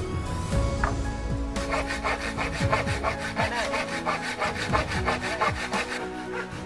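Handsaw cutting through a wooden plank: fast back-and-forth strokes, about four to five a second, starting about a second and a half in and stopping shortly before the end.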